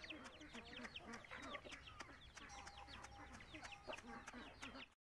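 Chicks peeping over and over in short falling peeps, mixed with hens clucking and scattered sharp ticks; it cuts off abruptly just before the end.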